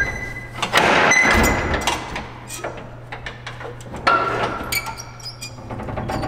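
Metal clunks and squeaks from the cab latch and tilt mechanism of a 1972 Ford C600 cab-over truck being worked by hand to open the cab. The loudest clatter comes around a second in, with another burst about four seconds in.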